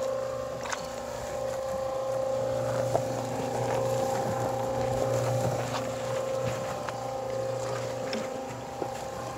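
Portable drum cement mixer running steadily, its drum turning a batch of mortar that is still balled up in clumps, with a few faint knocks.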